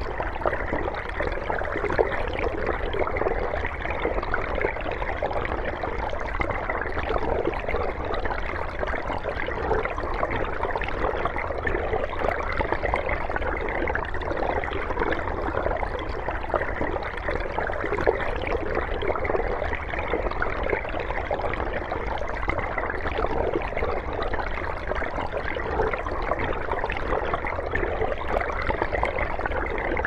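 Underwater water ambience: a continuous, even wash of moving water with a steady low rumble beneath it.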